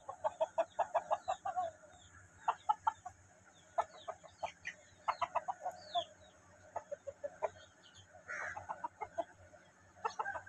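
Aseel chickens clucking in quick runs of short, clipped clucks, several bouts with brief pauses between.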